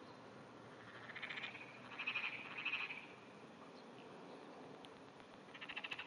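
Japanese wrinkled frog (tsuchigaeru) calling: trembling bouts of rapid pulses, a short one about a second in, a longer, louder one from about two to three seconds in, and another near the end.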